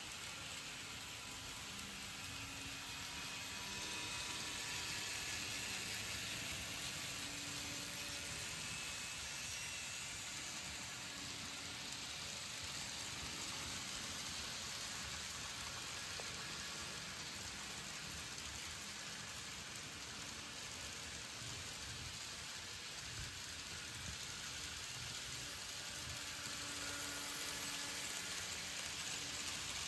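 Model freight train rolling along its track: a steady rattling hiss of small wheels on the rails, with a faint motor hum that swells a few seconds in and again near the end.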